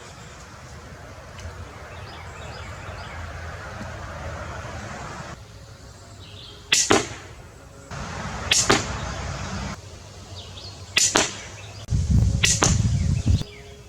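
Pistol crossbow being shot four times in the second half: each shot is a sharp snap of the string releasing, the shots about two seconds apart, with a dull low rumble around the last one.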